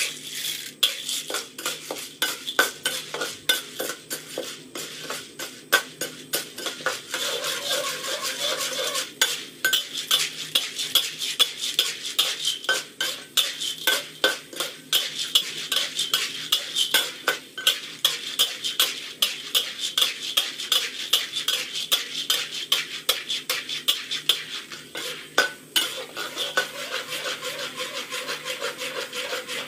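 Metal spatula scraping and clacking against a steel wok as oil-coated, unpopped popcorn kernels are stirred and turned, the kernels rattling along the pan; many quick scrapes and clicks over a light sizzle.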